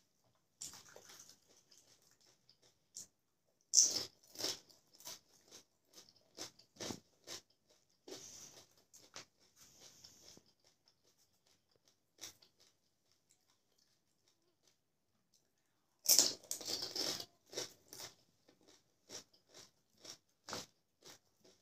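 Crisp, hollow golgappa (pani puri) shells being bitten and chewed. A loud burst of crunching comes about four seconds in and again around sixteen seconds, each followed by a run of separate sharp crunches, with softer crackling between.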